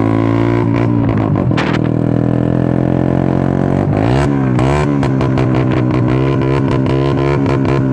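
Motorcycle engine revved by hand in a rhythmic throttle 'call', held at high revs with the pitch sagging slowly, then swinging up and down about four seconds in before holding steady again, with crackles from the exhaust.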